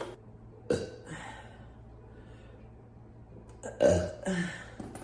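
A woman burping: a short burp just under a second in, then a louder, longer, low-pitched burp in two pushes near four seconds in.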